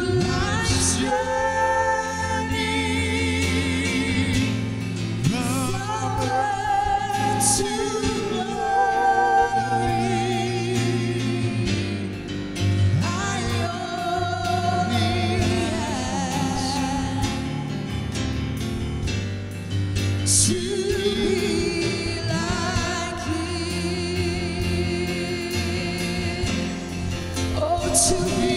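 Live gospel worship music: a band playing with a wavering, vibrato-rich singing voice over a steady low accompaniment.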